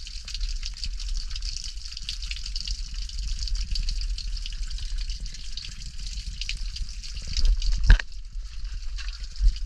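Water dripping and trickling from a cave ceiling onto wet rock: a steady patter of many small drops. A single sharp knock about eight seconds in.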